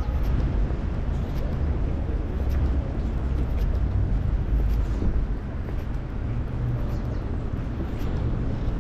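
Steady city street ambience, mostly a low rumble of traffic.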